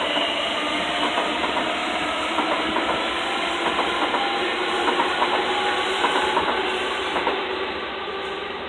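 Class 345 Aventra electric multiple unit running along the track, with a steady rushing noise, a faint motor whine and light clicking of wheels over rail joints. The sound eases off near the end.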